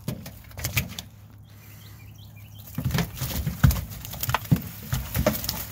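Freshly caught crappie dumped from a bucket onto a pickup's truck bed, the wet fish slapping and flopping against the bed in a run of irregular patters and thumps, busiest over the second half.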